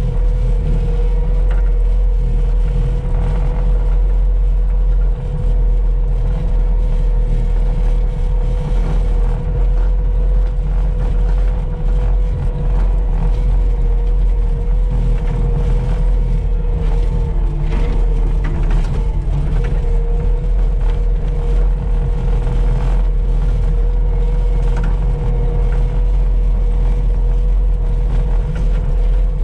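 Vehicle engine running at a steady speed, with a constant whine over a low rumble, while driving along a gravel driveway.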